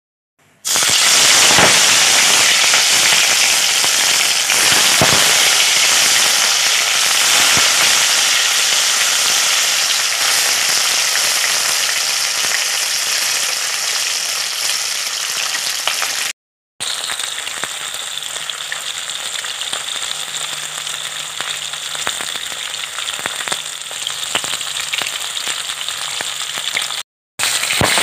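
Turmeric-coated rohu fish steaks deep-frying in hot oil in a wok: loud, steady sizzling with scattered crackling spits. It starts abruptly under a second in and cuts out briefly twice.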